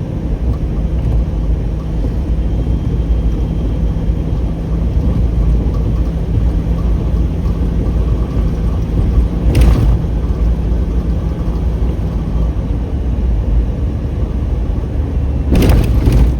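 Road and engine noise inside a moving car's cabin: a steady low rumble. A short knock comes about ten seconds in and a few more near the end.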